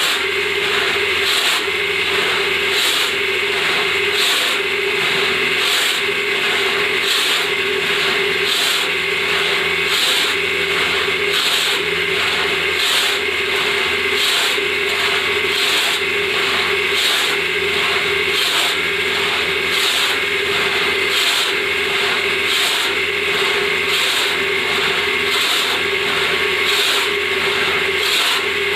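Hand saw cutting through wood in steady back-and-forth strokes, about one and a half a second, with a steady hum underneath.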